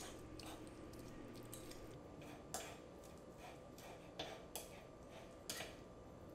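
Two metal forks pulling apart tender poached chicken thighs on a wooden cutting board: faint scraping, with a few soft clicks of the tines from about two and a half seconds in.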